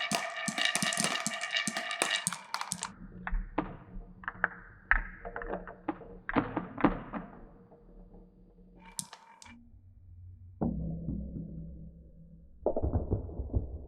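Glass marbles clattering and rolling down a wooden marble run. For the first few seconds there are rapid clicks over ringing tones. Then come separate knocks and low rolling rumbles along the tracks, a short ring a little after nine seconds, and fresh rolling runs near the end.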